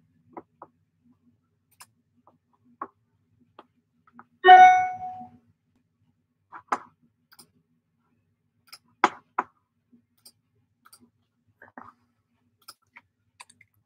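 Scattered soft clicks and taps, with one short ringing chime about four and a half seconds in, the loudest sound.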